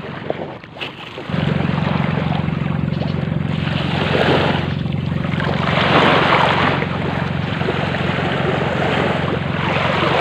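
Motorboat engine running with a steady low hum that comes in about a second in, under rushing wind and water noise that swells and fades a few times.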